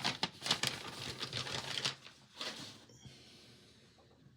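Quick run of clicks and rustling as items and packaging are handled on a workbench, dying away about three seconds in.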